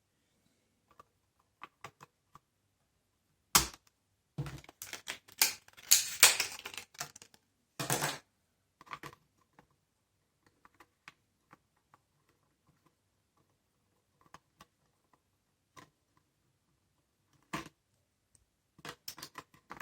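Sharp clicks and clatter of laptop RAM sticks being handled and pressed into the memory slots of a Framework Laptop: a dense run of clicks between about four and eight seconds in, then scattered faint ticks, and a few more clicks near the end.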